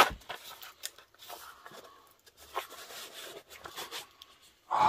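A sharp click at the start, then faint, intermittent rustling, crinkling and small knocks of objects being handled.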